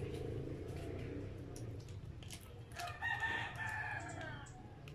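A rooster crows once about three seconds in, a single call of about a second and a half that sinks slightly in pitch. Before it come close-up chewing and mouth sounds.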